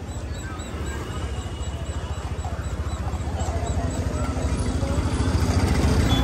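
Vehicle running on the road: a low, pulsing engine and road rumble that grows steadily louder.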